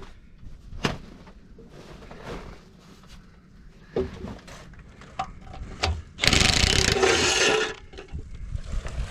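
A few sharp clicks and knocks of a tool on metal, then a power tool runs in one loud burst of about a second and a half as the last screw of the final-drive cover plate is taken out.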